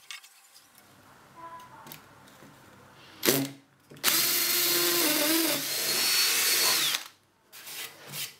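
Electric drill boring a pilot hole through a pine board, the starting hole for a jigsaw circle cut: a steady high-pitched whine for about three seconds that winds down at the end.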